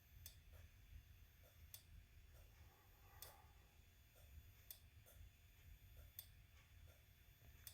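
Near silence: room tone with faint, evenly spaced clicks, about one every second and a half.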